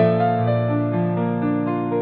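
Slow, gentle piano music: single notes and chords struck a few times a second, ringing on over held bass notes.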